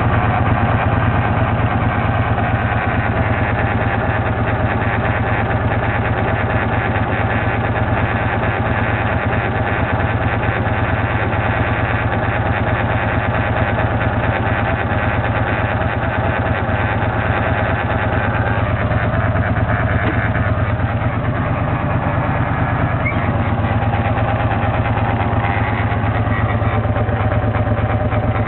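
Motorcycle engine idling steadily with a fast, even pulse. It is making the strange noise that its owner is trying to trace.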